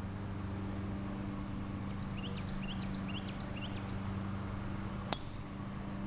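Driver striking a golf ball off the tee: one sharp metallic click about five seconds in. Before it, a bird chirps a quick series of short rising notes over a steady low hum.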